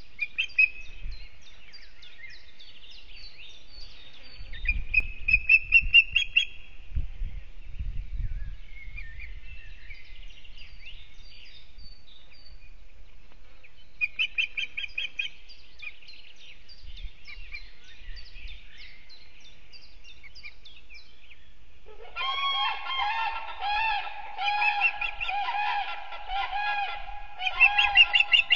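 Wild birds calling in the forest around an osprey nest, a species the uploader could not identify. Rapid high chirping notes come in bursts, then from about two-thirds through a louder, lower call with a rich, harsh tone repeats in quick pulses. There are a few low thumps early on.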